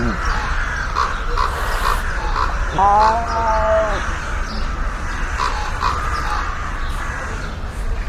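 Sand cat giving one drawn-out, meow-like call about a second long, a little before the middle, its pitch rising at the start and sagging at the end. Behind it, a steady hiss with faint short chirps repeating every half second or so.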